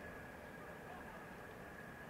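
A distant engine running steadily, with a high whine held at one pitch over a steady wash of noise.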